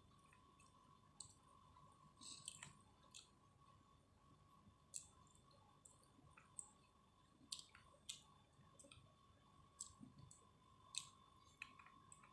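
Close-up eating sounds: soft, irregular mouth clicks and smacks of chewing, about one a second, over a faint steady high hum.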